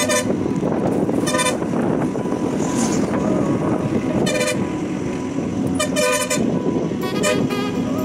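A vehicle horn honking in short toots, about five times spread over the stretch, over the steady rumble of a moving bus.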